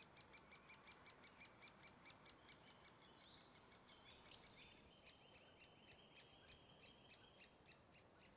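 Great spotted woodpecker nestlings begging from the nest hole: a rapid, even series of short, high calls, about three to four a second, heard faintly. The chicks are calling for food from their parents.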